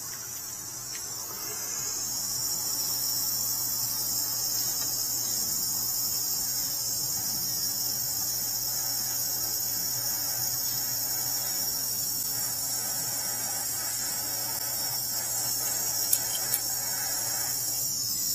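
Heat tool running on the controller's wiring splices: a steady high-pitched hiss that holds level, then cuts off abruptly at the end.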